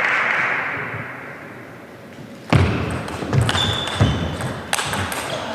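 A table tennis rally: a celluloid ball clicking off the paddles and the table, a string of sharp knocks about half a second apart that begins about halfway through, in a large hall.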